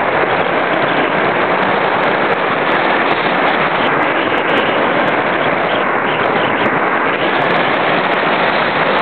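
Steady, loud rush of airflow over the microphone of a small camera carried on an RC glider in flight.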